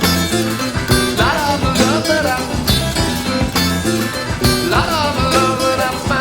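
Background music: a guitar-led song with a steady beat and a bass line, with what may be a singing voice.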